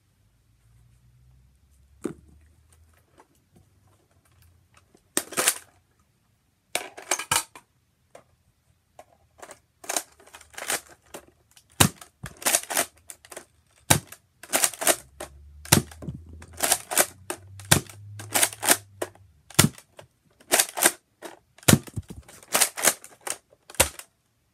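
Nerf Recon MKII spring dart blaster being primed and fired over and over: sharp plastic clacks and snaps. A few spaced shots at first, then a quick run of them from about ten seconds in.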